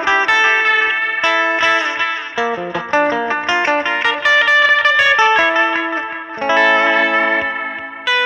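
Background music: an electric guitar with effects playing a quick run of plucked notes.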